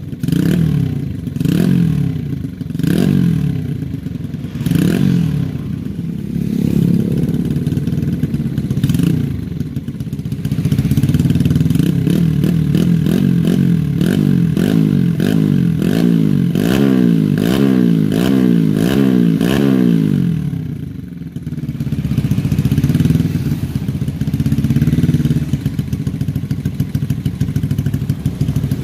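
Bored-up Yamaha Vega R four-stroke single, fitted with a 53 mm FIM piston and a 28 mm PWK carburettor, being free-revved on the stand. Slow rev swells for the first third give way to a quick run of throttle blips one after another. Near two-thirds through the revs drop back, and then it runs unevenly with smaller rises.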